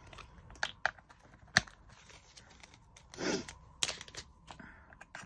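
Small plastic drill containers clicking and a plastic bag of diamond-painting drills rustling as they are handled: several sharp separate clicks, with a brief crinkle about three seconds in.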